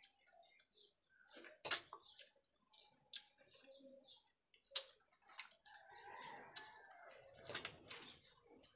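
Quiet close-up eating sounds: a person chewing rice and curry eaten by hand, with soft wet mouth crackles and a few sharp clicks, three of them louder than the rest.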